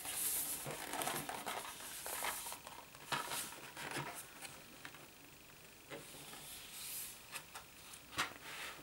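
A fold-out cardboard DVD case being handled and opened: the board rubs and rustles as the cover folds back and the panels unfold, with a few sharp clicks from the plastic disc trays.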